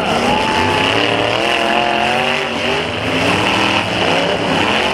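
Engines of several demolition derby cars revving on a dirt arena, their pitch rising and falling over and over.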